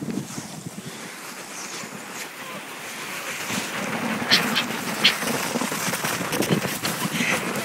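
Steady hiss and scrape of a person sliding down packed snow on their clothes without a sled, mixed with wind noise on the microphone. It grows louder through the middle, with two sharp scrapes about four and five seconds in.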